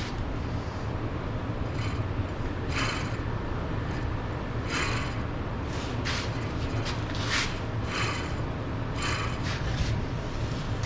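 Hand tools working on metal: short rasping strokes every second or two over a steady low hum.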